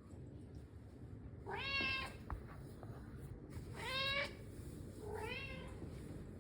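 Maine Coon cat meowing three times, short calls that rise and fall in pitch.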